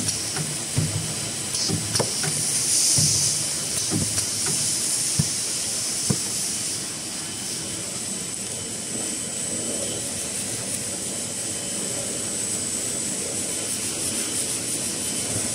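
XY-503IZ automatic labelling and film-bag packing machine for kitchen towel rolls running, with a steady high-pitched hiss. Sharp clacks come every second or two during the first six seconds or so, then a steadier mechanical run.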